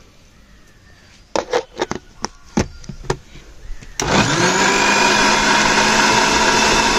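A few clicks and knocks, then about four seconds in a Preethi Galaxy Plus mixer grinder's motor starts. Its pitch rises quickly, then it runs loud and steady, blending watermelon pieces into juice.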